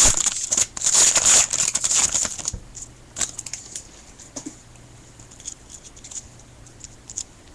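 A trading card pack wrapper being torn open and crinkled, loud and crackly for about the first two and a half seconds, then quieter rustles and light taps as the cards are handled.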